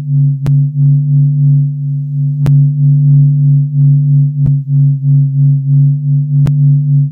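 The 'sound of the Sun', a sonified recording of the Sun's vibrations: a steady, loud, low hum with a fainter higher tone above it, wavering slightly in level. A sharp click cuts through it every two seconds, four times in all.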